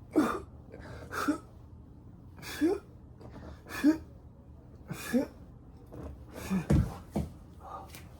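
A person's short, forceful exhalations, each with a falling voiced grunt, about seven or eight in a row at roughly one a second: effortful breathing through repeated exercise movements.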